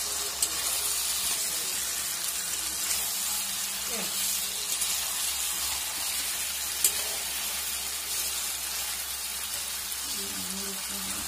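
Chicken pieces sizzling as they fry in masala in a pan while being stirred with a spatula, with two sharp clicks of the spatula against the pan, about half a second in and near seven seconds. This is the stage where the meat is worked into the masala and browned.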